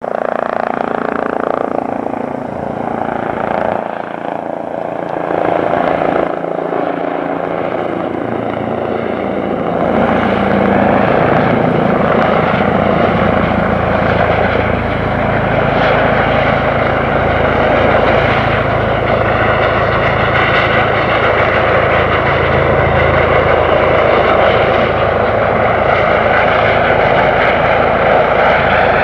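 Airbus Helicopters H135 air ambulance approaching: a steady rush of rotor and turbine noise that grows louder and fuller about ten seconds in as the helicopter comes closer.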